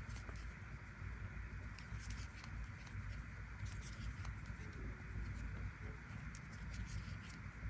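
Faint, irregular soft ticks and rustles of a 2 mm metal crochet hook pulling yarn through stitches, over a steady low hum.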